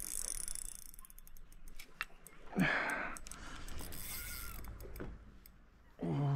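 Banax Hades Pro 2500DH spinning reel clicking in irregular runs while a hooked fish is fought. A short falling vocal sound comes about two and a half seconds in, and another near the end.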